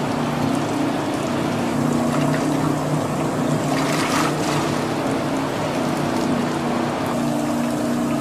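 Large mixing machine's motor running steadily as its paddle churns starch and water into a thick slurry, with wet sloshing, and a short louder rush of noise about four seconds in as water pours in.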